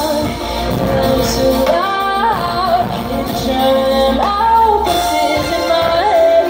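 Live pop band performance: a woman sings lead over a full band with keyboards and guitar, heard as it sounds in the club from the crowd.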